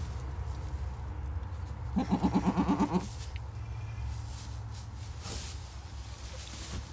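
Doe goat in labour bleating once, a wavering call about a second long, two seconds in, as she strains to deliver her kid.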